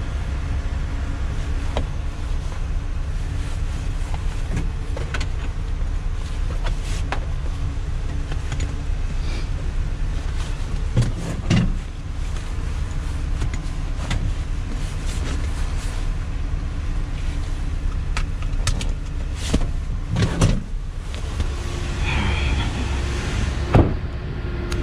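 A vehicle engine idling steadily with a low rumble. Over it come a few clunks and clicks as a seat belt and its buckle are handled in the cab, and there is one sharp knock near the end.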